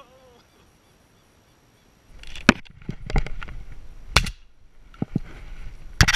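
Shotgun shots fired at flying doves: several sharp, loud cracks starting about two seconds in, roughly a second or two apart, with a cluster of reports near the end.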